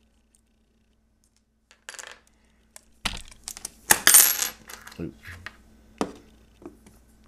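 Toy excavator model being pulled apart and its parts set down on a wooden table: a run of small clicks and clatters starting about two seconds in, the loudest clatter about four seconds in.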